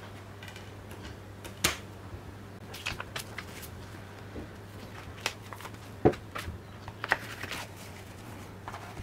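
Gloved hands handling plastic disc packaging: scattered clicks and taps as a disc is pressed onto its clear plastic tray and the case pieces are gathered up, the sharpest click about six seconds in. A faint steady hum lies underneath.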